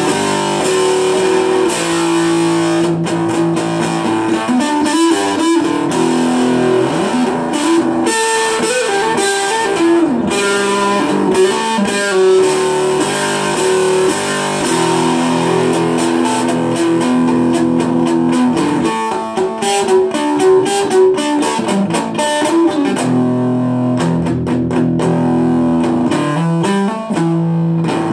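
Electric guitar playing a song: held chords and picked notes, with some bent notes that glide in pitch.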